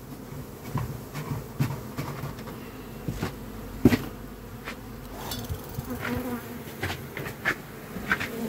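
Honeybees buzzing in numbers around open hives, with short knocks and clicks of hive gear being handled; the loudest knock comes about four seconds in.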